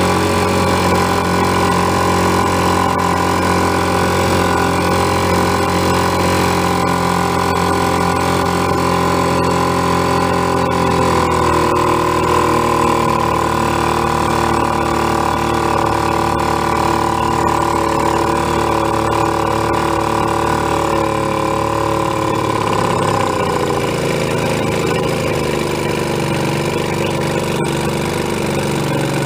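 Antique outboard motor running steadily under way. Its pitch drops about a third of the way in and again a few seconds before the end as the motor slows.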